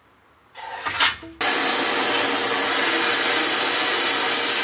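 A few rubbing and knocking handling sounds, then about a second and a half in a sandblast gun inside a blast cabinet starts with a sudden, loud, steady hiss of air and abrasive, blasting rust off a steel brake dust shield.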